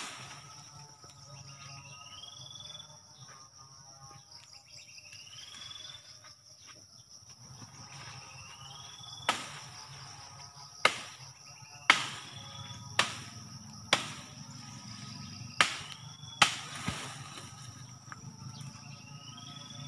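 A machete chopping into tree branches: about seven sharp strokes at uneven intervals in the second half. Under them runs a steady high insect drone, and a short rising whistled call repeats every few seconds.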